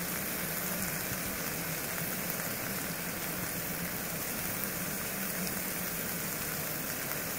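Steak and mushrooms sizzling in a frying pan on a gas canister stove: a steady hiss that keeps an even level throughout.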